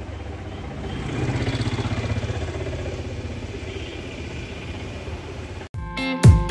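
A vehicle engine running with a low, fast pulse, growing louder about a second in and then slowly fading. Near the end it cuts off and plucked guitar music begins.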